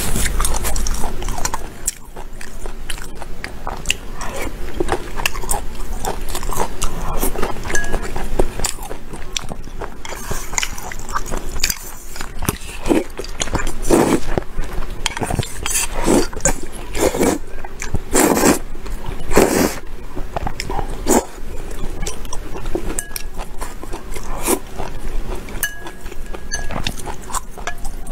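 A person eating wide noodles close to the microphone: chewing and small wet mouth clicks, with several louder slurps of noodles and broth through the middle stretch.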